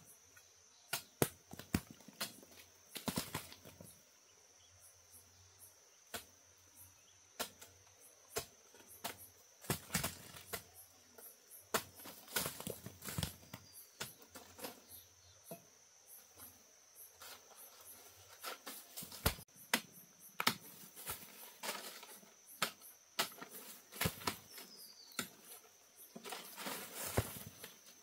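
Irregular clicks, snaps and knocks of close handling, over a steady high insect drone of crickets or cicadas.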